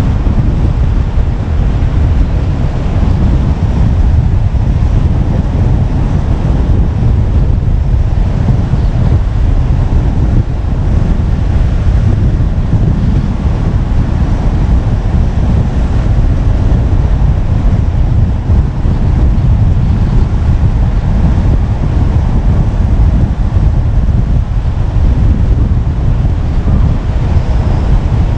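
Steady low rumble of wind buffeting the microphone of a camera mounted on a moving car, mixed with the car's road noise at a steady cruising speed.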